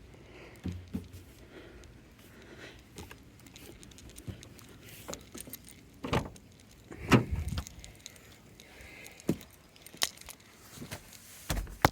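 Car keys jangling and clicking, with scattered sharp knocks and thumps; the loudest knock comes about seven seconds in.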